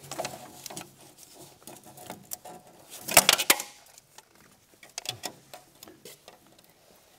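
Tape measure and gloved hands working against the bare metal of a snowmobile chassis and drive shaft: scattered light clicks and small metal rattles, with a brief louder clatter about three seconds in.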